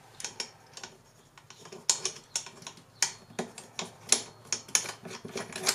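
Irregular sharp clicks and taps of metal on plastic as a screw is fitted by hand through a metal mounting plate on a car's plastic air filter box, a few of them louder about two, three and four seconds in.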